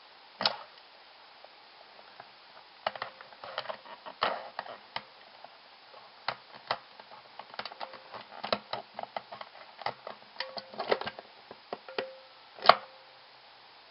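Irregular plastic clicks and taps from a Hollywood Nails nail-stamping device worked by hand, as the stamper is pressed down, slid over the image plate and pressed onto a fingernail. The clicks are scattered and uneven, with a sharper, louder one near the end.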